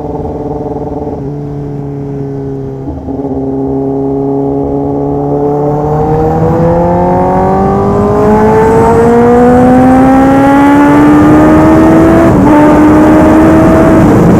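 Kawasaki ZX-10R inline-four engine through a full aftermarket exhaust system, accelerating: it holds steady for a few seconds, then the revs and loudness climb smoothly for several seconds, with a brief drop in pitch about twelve seconds in as it shifts up, and it pulls on in the next gear.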